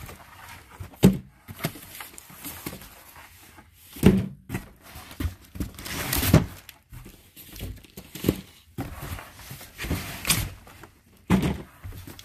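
Irregular thunks and light rustling as items are taken out of a cardboard box and set down, about one knock every couple of seconds.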